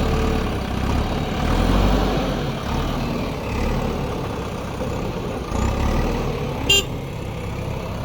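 JCB backhoe loader's diesel engine running under working load, its low rumble swelling and easing as the machine works. A brief sharp high-pitched sound cuts in once near the end.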